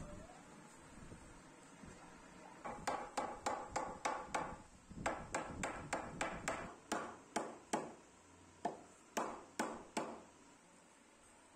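Steel hammer striking a hardwood door-frame piece to knock a curved section and a straight rail together at their joint: about twenty sharp blows in quick runs, roughly three a second, with short pauses between the runs.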